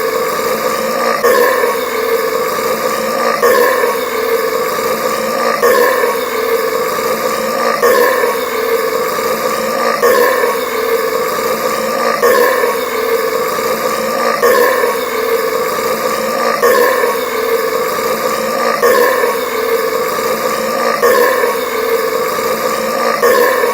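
One long, loud burp after chugging carbonated Sprite Cranberry soda. It runs without a break, the same stretch starting over about every two seconds as a loop.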